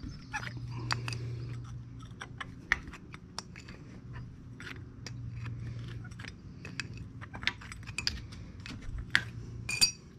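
Irregular light metallic clicks and taps of a wrench and air-line fittings being handled and threaded into an air-suspension leveling valve, the sharpest clicks near the end, over a steady low hum.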